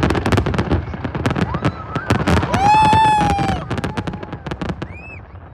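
Fireworks in a dense barrage: many shells cracking and banging in rapid succession, with a high held tone about halfway through. The bangs thin out and die away near the end.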